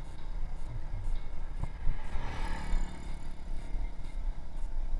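Wind rumbling on the microphone of a camera on a moving bicycle, with a motor vehicle passing on the road about two seconds in.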